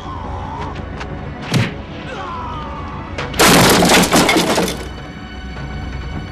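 Film fight sound effects over the music score. There is a sharp hit about a second and a half in and shouting. About halfway through comes a loud crash lasting over a second, as a soldier is knocked into a row of red war drums.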